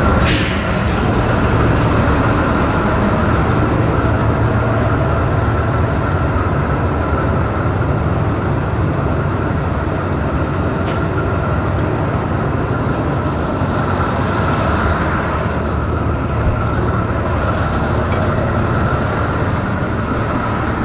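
Pile-driving crane's engine running steadily, with a short hiss at the very start.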